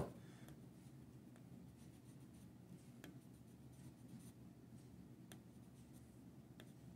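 Faint rubbing of a metal cuticle pusher burnishing a thread wrap on a fishing rod blank, pushing the thread to close a small gap in the wrap, with a few light ticks.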